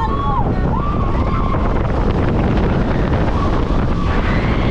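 Roller coaster train rushing along the steel track, heavy wind buffeting the microphone. There are a few short high-pitched wails in the first second and a half.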